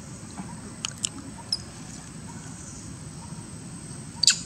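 Long-tailed macaques giving short, high-pitched squeaks: three quick ones in the first second and a half, and a louder one near the end.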